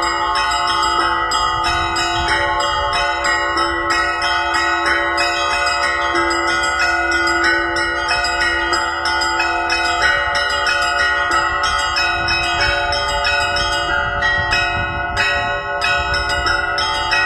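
Several church bells rung together in a continuous, fast peal: quick strikes several times a second over the lingering hum of larger bells.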